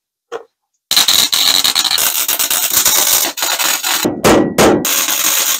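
Wire-feed welder tack-welding a new sheet-steel floor pan: a loud crackling sizzle of the arc starting about a second in, broken into two short bursts near the end, then running on again.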